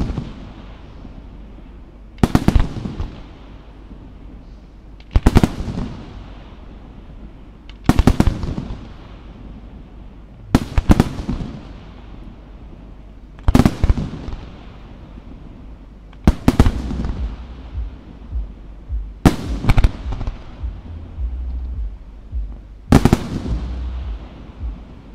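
Bruscella aerial firework shells bursting one after another, a sharp loud bang about every three seconds, some in quick doubles, each fading out in an echoing rumble.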